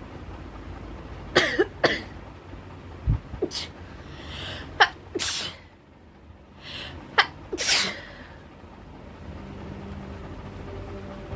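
A person sneezing several times in quick succession, the sneezes coming mostly in pairs of a sharp catch followed by a longer gust, set off by tickling the inside of the nose with a cotton bud.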